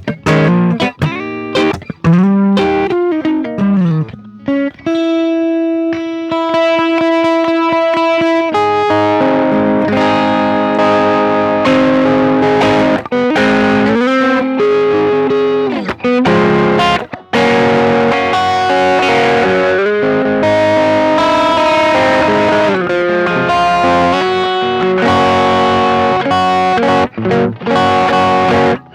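Electric guitar played through effects pedals, a Ross compressor among them, with a mildly driven tone: a note bent downward a couple of seconds in, a long sustained note held for about four seconds, then busy continuous lead lines.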